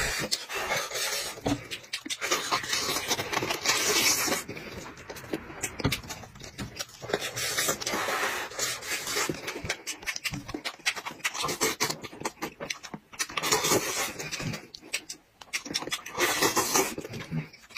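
Close-miked eating: a person chewing and slurping, with wet mouth clicks and smacking in irregular spurts and short pauses between mouthfuls.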